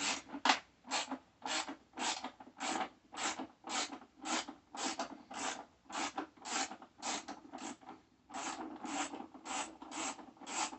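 Hand ratchet with a Torx bit being worked back and forth to back out a bolt, a rasping ratchet stroke about twice a second with a short pause about eight seconds in.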